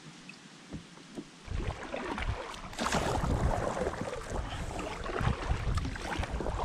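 Kayak paddle strokes splashing and churning the water, beginning about a second and a half in, with irregular sloshing and low rumbling against the hull.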